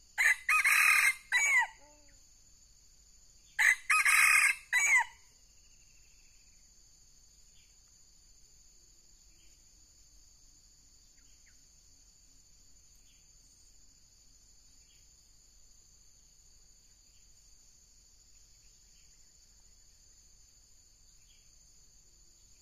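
Junglefowl rooster crowing twice, a short broken crow each time, the second starting about three and a half seconds after the first. After that only faint insect ticks and a steady high hiss.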